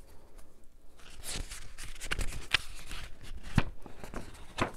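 Paper pages rustling and crinkling as they are handled and turned, a string of short dry clicks and rustles.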